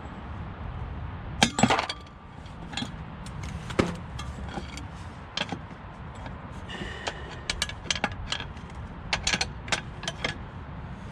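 Steel hand tools and a bolt extractor socket clinking and knocking irregularly against metal while working on a rounded-off drive shaft bolt. The loudest cluster of clinks comes about a second and a half in, and there is a brief metallic ring near the middle, over a steady low hum.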